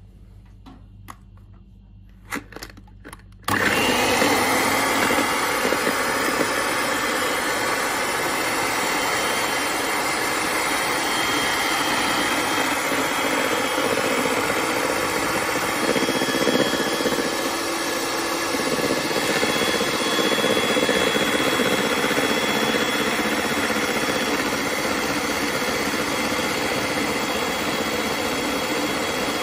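A few light clicks, then about three and a half seconds in a Kenwood electric hand mixer starts suddenly and runs steadily, its twin beaters whisking eggs and sugar in a bowl.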